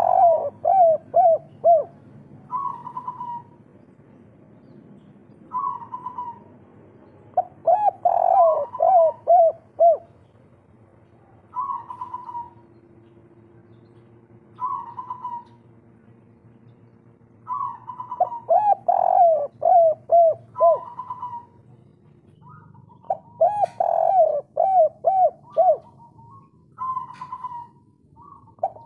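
Spotted dove (derkuku) cooing in repeated phrases every few seconds: some short single coos, and some longer runs of quick, rolling notes.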